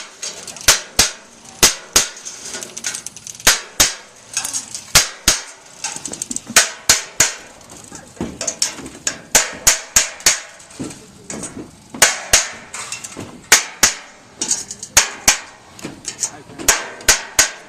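Hammer blows on metal chimney flashing, struck a few times a second in irregular runs, each sharp strike ringing briefly, as the flashing is tapped into place.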